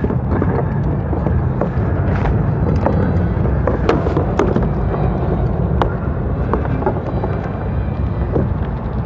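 Wind rumbling on the microphone, with scattered knocks and clicks as a wheeled kayak cart is set under a kayak and the kayak is pulled back.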